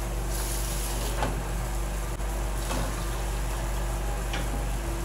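Water being poured into a metal pot of uncooked rice, a steady rushing pour with a few light knocks, over a constant low hum.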